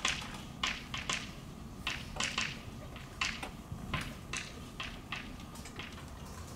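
Chalk writing on a chalkboard: an irregular string of short taps and scrapes as letters are written.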